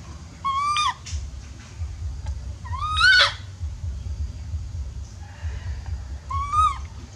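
Baby monkey crying: three clear, high calls, each rising and then dipping slightly at the end, the middle one the loudest. The owner puts the crying down to the infant missing its mother and needing warmth. A low steady rumble runs underneath.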